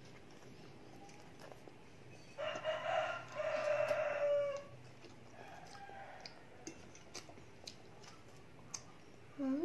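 A rooster crowing once, a single call of about two seconds starting a couple of seconds in, over a quiet background with faint clicks of forks on plates.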